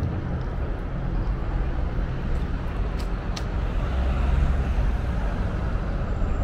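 Road traffic noise on a city street: a steady rumble of cars, swelling as one passes close about four seconds in, with two short clicks about three seconds in.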